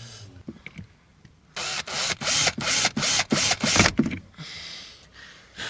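A quick run of about seven harsh, ratchet-like scraping strokes over a couple of seconds, from hand work on a car door speaker mounting, with one more stroke near the end.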